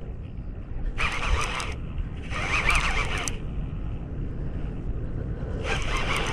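Fishing reel giving line in three short raspy buzzes as a hooked leopard shark pulls against the drag, over a steady low rumble of wind and water.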